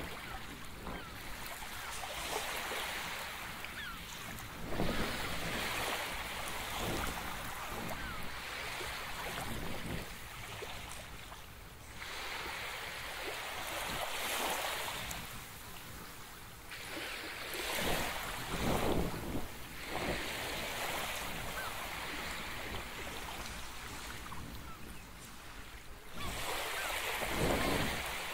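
Waves washing in and breaking, swelling and fading every few seconds, with wind buffeting the microphone.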